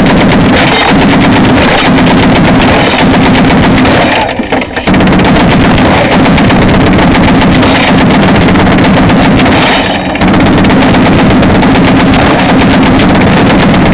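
Browning M2 .50-calibre heavy machine gun firing long, very loud bursts, broken by a short pause about four seconds in and a brief let-up near ten seconds.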